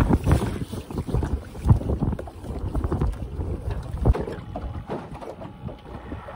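Wind buffeting the microphone on a small boat, strongest at the start and easing off, with rustling and a few sharp knocks as a rope is handled on deck, the clearest knocks about two seconds and four seconds in.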